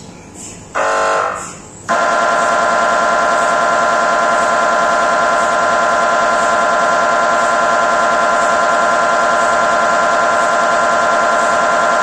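GE MRI scanner's gradient coils buzzing during a scan: a short burst about a second in, then from about two seconds in a loud, continuous buzz as the imaging sequence runs.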